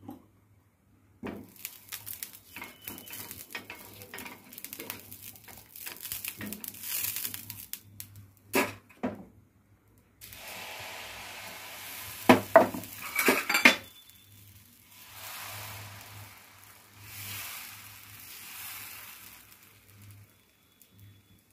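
Metal utensils scraping and clinking on a hot dosa pan, with several loud metallic clanks about twelve seconds in. In between and afterwards the oiled pan sizzles in swells as it is wiped and the batter is spread.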